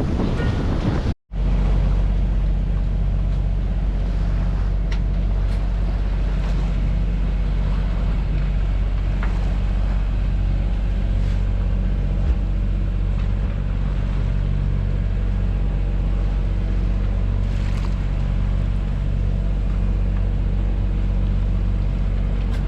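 Wind noise on the microphone for about a second, then, after a sudden cut, a boat's engine running steadily as an even low drone.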